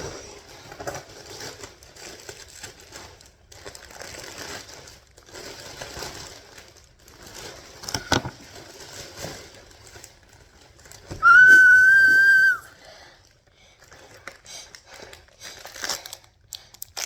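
Packaging rustling and crinkling as packages are opened by hand, with scattered clicks and tearing. About two-thirds of the way through, one loud, steady, high whistle-like tone sounds for about a second and a half.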